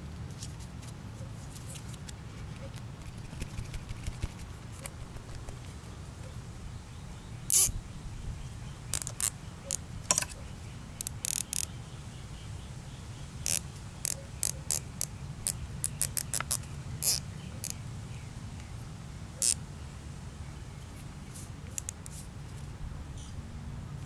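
White 14-inch nylon zip tie being threaded and pulled through its locking head, the ratchet giving sharp irregular clicks and short runs of clicks. A steady low rumble lies under them.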